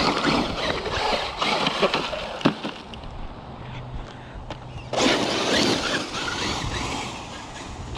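Traxxas UDR RC desert truck driving over dirt, its drivetrain and chassis rattling and clattering, so that it sounds like nuts, bolts and screws falling out of it. A louder rush of noise comes about five seconds in.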